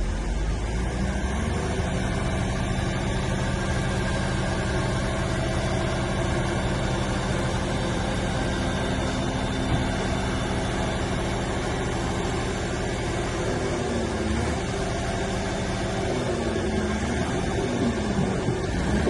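DH17 C2 LGP bulldozer's diesel engine running steadily, with wavering squeals coming in during the last few seconds.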